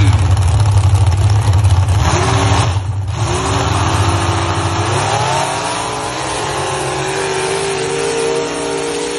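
Mud-drag truck engines staged at the start line: a deep, loud rumble for the first two seconds, then revving, with the engine note climbing from about three seconds in and held high to the end.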